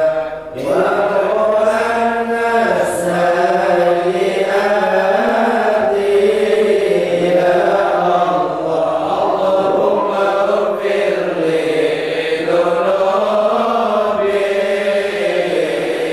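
A group of men chanting Arabic Maulid verses in praise of the Prophet in unison, in the Javanese mauludan style. The slow melody rises and falls on long held notes, with a brief breath pause about half a second in.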